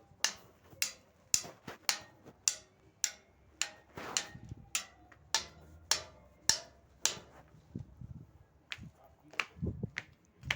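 Sharp percussive taps in a steady rhythm, about two a second, some with softer taps in between. They turn softer and less regular after about seven seconds, and a few low thuds come near the end.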